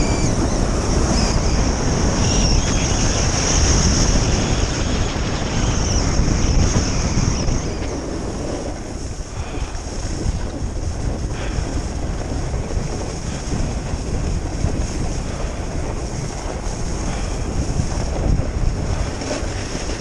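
Wind buffeting the camera microphone and skis hissing over groomed snow on a downhill ski run. It is loudest for the first eight seconds, then eases off a little and stays steady.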